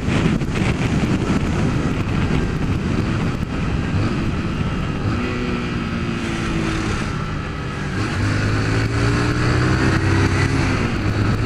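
Honda CG 150 Fan's single-cylinder engine running as the motorcycle rides through traffic, with wind rushing over the microphone. About two-thirds of the way through, the engine hum grows stronger and steadier.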